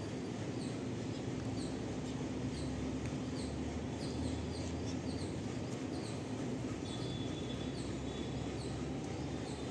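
A small bird chirping repeatedly, short high notes about once or twice a second, over a steady low outdoor hum.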